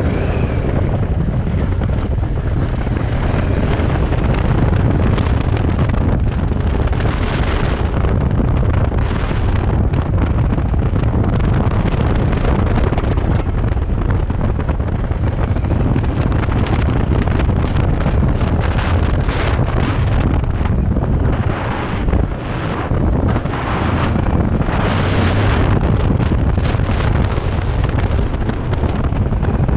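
Wind buffeting the microphone over a Kawasaki Versys 650's parallel-twin engine running at riding speed on a gravel trail, with a short drop in level about three-quarters of the way through.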